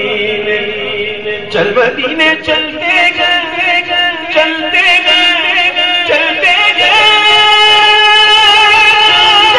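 A man singing a naat unaccompanied into a microphone, with wavering ornamented runs, then a long held note from about seven seconds in.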